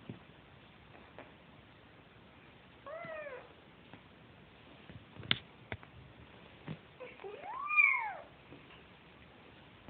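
A young kitten mewing twice while nosing for its mother's milk: a short call about three seconds in, and a longer, louder call that rises and falls near the end. A few sharp clicks come between the calls.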